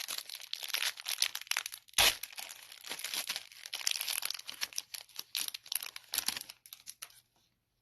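Crinkling and tearing of a plastic-foil trading-card pack wrapper being ripped open and handled, with a sharper snap about two seconds in. The crackling stops about seven seconds in.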